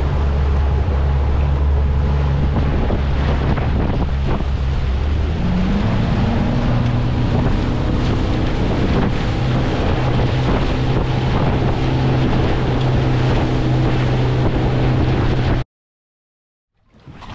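A small leisure boat's engine running steadily at speed, with water rushing past the hull and wind on the microphone. About six seconds in, the engine note rises a little and then holds. It cuts off suddenly near the end.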